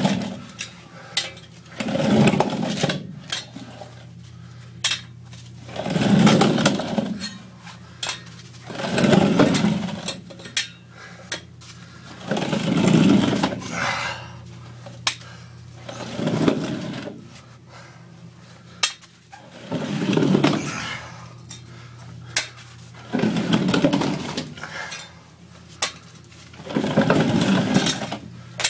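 A person crawling through a cramped crawl tunnel: a swell of scraping and heavy effort comes about every three to four seconds with each push forward, with scattered knocks and clicks between, over a low steady hum.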